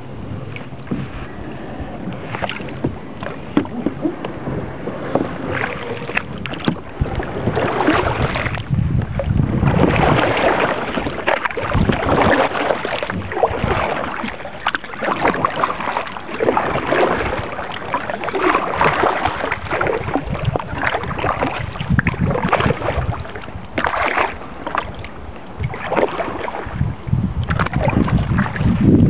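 Kayak paddle strokes in water: repeated swishing splashes about once a second, louder from about a third of the way in.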